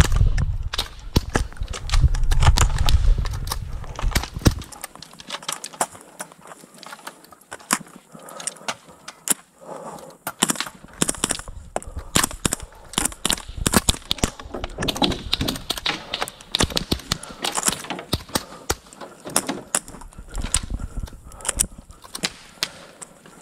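A rapid, uneven series of sharp shots and cracks from guns being fired at targets, several a second in places. A low rumble runs under them for the first few seconds.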